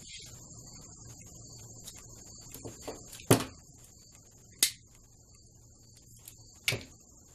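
Hands working aluminium shielding tape: three sharp clicks or snaps about a second or two apart, over a steady high-pitched whine and a low hum.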